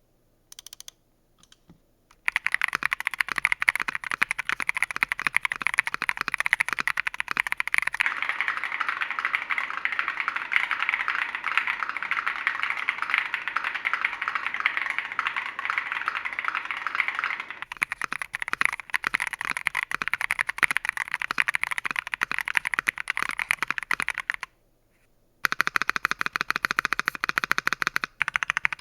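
Ajazz AC081 mechanical keyboard with lubed Gateron Yellow linear switches being typed on fast. A few single key presses come first, then continuous rapid typing starts about two seconds in, stops for about a second near the end, and resumes.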